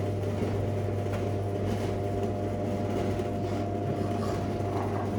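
A steady low mechanical hum with a faint higher whine over it, unchanging throughout.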